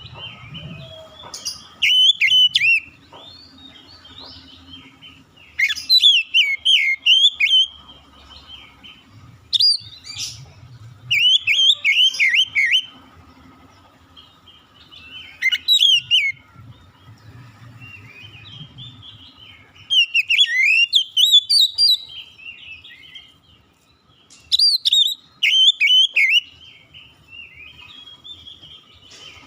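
Oriental magpie-robin (kacer) singing: bursts of rapid, varied whistled phrases with quick up-and-down glides, each a second or two long, coming every few seconds with short pauses between.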